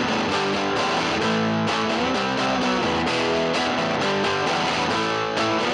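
Background music led by a guitar, at a steady level with changing notes.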